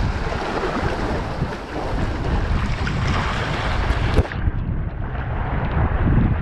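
Strong wind buffeting the microphone, with the wash of water beneath it. A single sharp click comes about four seconds in, after which the sound turns duller.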